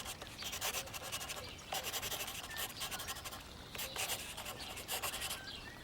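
Pencil scratching across paper in quick sketching strokes, in short runs with brief pauses.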